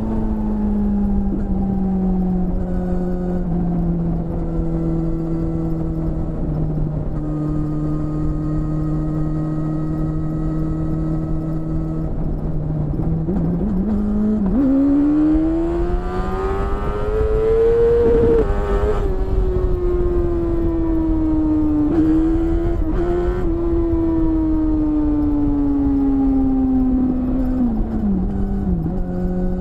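BMW S1000RR's inline-four engine with an Akrapovic exhaust, heard from the rider's seat with wind rush. It holds a steady, slowly easing cruise for about twelve seconds, then the revs climb in one long pull, peak, and fall away gradually with a couple of brief blips before settling back to a steady cruise near the end.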